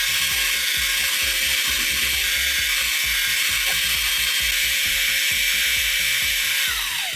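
Small hand drill fitted with a bent piano-wire stirrer, running steadily while mixing acrylic paint and thinner in a small bottle. Its motor whine drops in pitch and winds down near the end as it is switched off.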